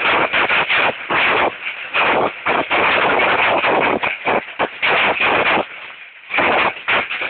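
Hailstorm: hail and rain pelting down in a loud, dense rush that surges and drops in quick, uneven waves, easing briefly about six seconds in.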